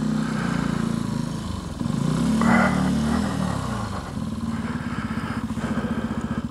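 Benelli TNT 125's single-cylinder four-stroke engine pulling away from a standstill: the revs climb about two seconds in, drop back a second later, then settle into a steady low-speed run.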